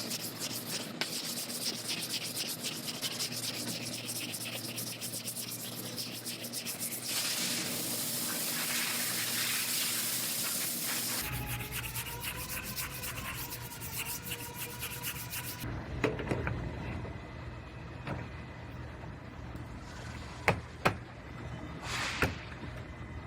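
Sanding of a thin final coat of body filler on a car's quarter panel: a fast, rhythmic scraping whose character changes abruptly a couple of times. In the last several seconds the sanding stops and a few separate knocks and clicks are heard.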